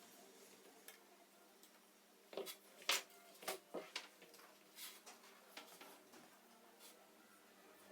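A handful of sharp clicks and taps from small hand tools working at a laptop's soldered-in charger jack. They bunch together between about two and a half and five seconds in, loudest near three seconds, with a few fainter ticks after; the rest is faint room tone.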